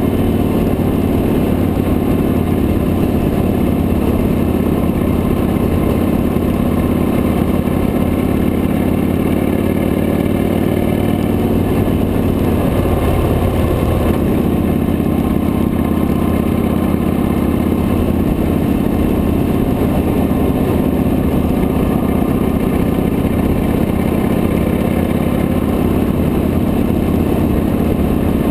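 Victory High-Ball motorcycle's V-twin engine running steadily at cruising speed, mixed with wind and road noise on the handlebar-mounted camera. The engine note shifts briefly about halfway through.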